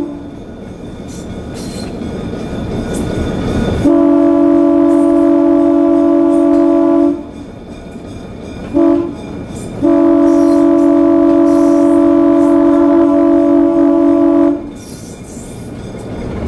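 ALCO RSD-1 diesel locomotive's air horn heard from the cab, sounding the grade-crossing signal: a long blast about four seconds in, a short blast near the middle, then a final long blast of about five seconds. Between the blasts the locomotive's engine and wheels on the rails rumble.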